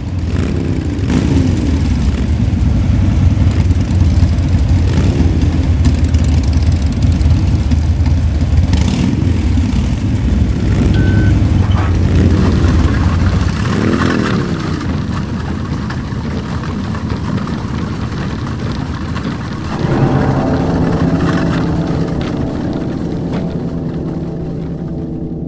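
Car engines revving hard, their pitch rising and falling again and again over a deep rumble. Near the end the rumble drops away and a steadier held tone takes over.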